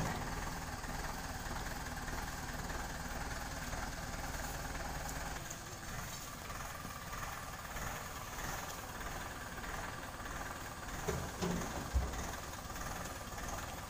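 Farm tractor engine idling steadily, with a couple of dull thumps near the end.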